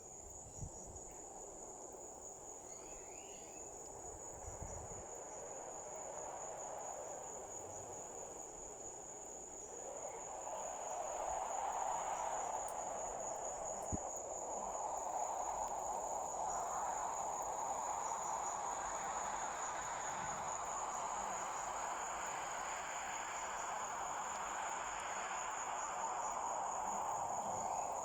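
Crickets chirring in a steady, unbroken high trill, over a rushing noise that grows louder about ten seconds in.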